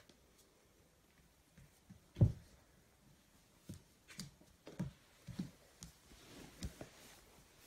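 A kitten's paws padding and clicking on a laminate floor: scattered soft taps and knocks, with one louder thump about two seconds in.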